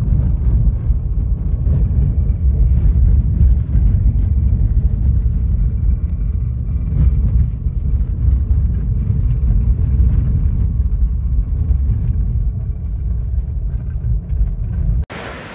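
Steady low road noise of tyres on a gravel road, heard inside the cabin of a Rivian electric vehicle. Near the end it cuts off sharply to an even hiss of rushing river water and wind on the microphone.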